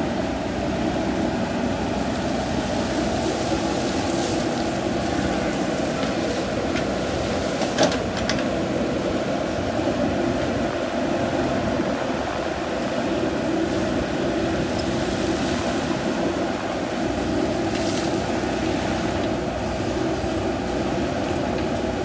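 JCB 3DX backhoe loader's diesel engine running steadily under working load while the backhoe arm digs and swings, with one sharp knock about eight seconds in.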